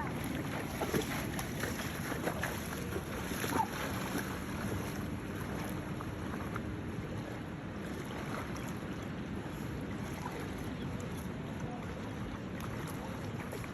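Steady outdoor noise of wind on the microphone and water, with a few sharp knocks in the first four seconds.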